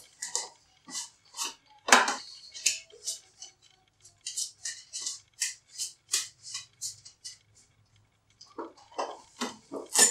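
A deck of playing cards being shuffled by hand: a run of short, crisp card snaps, about two or three a second, with a sharper one near the end.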